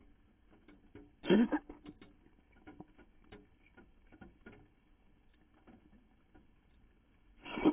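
A cat coughing in a fit: two short hacking coughs, one about a second in and one at the very end, with faint scattered ticks between them. It sounds thin, heard through a street-cat feeder camera's microphone.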